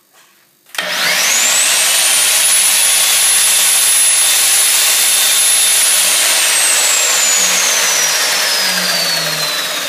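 2100-watt angle grinder (Flex) switched on about a second in, running free without load: its whine climbs quickly to a high steady pitch, holds for about five seconds, then falls slowly as it is switched off and coasts down.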